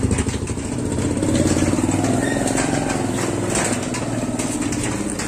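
A motorcycle engine running steadily, with a pulsing low note that rises a little in pitch about a second in.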